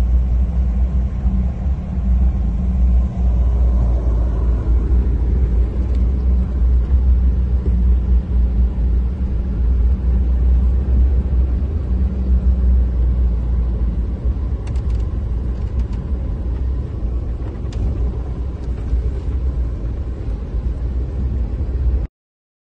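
Low, steady rumble of a car driving along a rough road, engine and road noise heard from inside the vehicle. It cuts off suddenly near the end.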